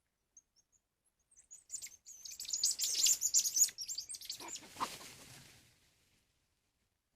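Birds chirping: a dense flurry of quick, high chirps that starts about a second and a half in, builds, and fades out a few seconds later.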